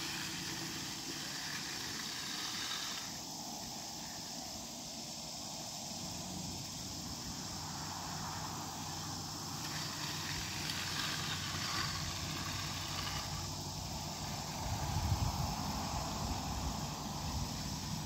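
Aluminium bull float sliding over a freshly poured, wet concrete slab in long push-and-pull strokes, a soft scraping swish that comes and goes every few seconds. A low steady hum sets in underneath partway through.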